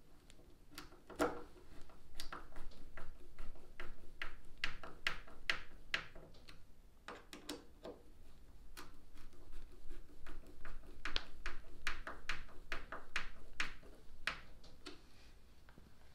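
Hand screwdriver driving screws into a rod holder's plastic flange and the waxed oak block beneath, giving a run of irregular small clicks, a few a second, as the screws are turned and the hand regrips.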